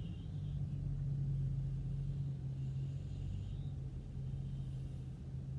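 Steady low hum of a Honda car idling, heard from inside the cabin.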